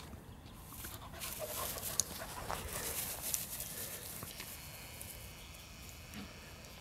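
Faint panting of small dogs at play, with light rustling and a few soft ticks.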